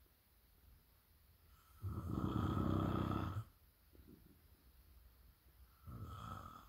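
Loud snoring: one long, fluttering snore about two seconds in, then a shorter, fainter snore near the end.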